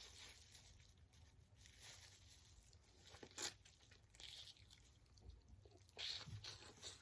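Faint crackling and crunching of a boiled shrimp's shell being worked apart with gloved hands, mixed with soft chewing. A sharper click comes about three and a half seconds in, and a brief louder crackle about six seconds in.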